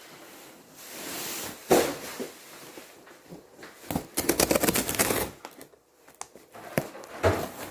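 Handling noises: rustling and knocks, with a quick run of small clicks about four seconds in.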